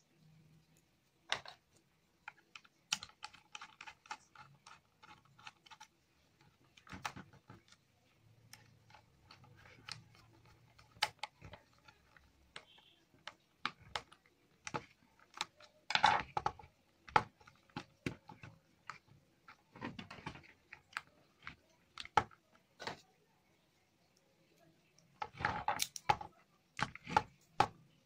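Irregular clicks and taps of wiring work on a plastic switchboard: wire ends and the plastic socket and fittings handled while the socket's neutral input is connected. The clicks come thickest about halfway through and again near the end.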